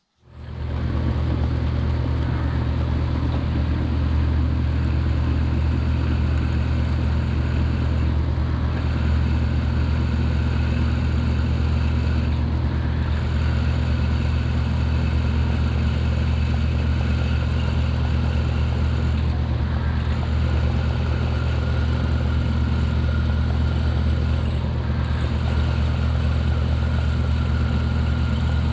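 Mill-drill's electric motor starting up and then running with a steady, loud hum while a twist drill bores into solid metal bar stock. A fainter, higher cutting tone breaks off briefly a few times.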